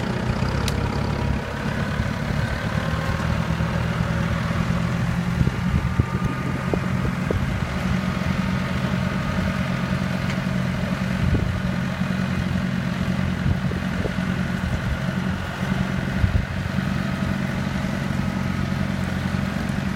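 A vehicle engine running steadily, with a few faint knocks.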